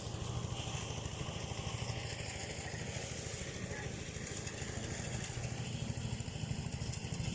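Small engine running steadily with a fast, even chugging.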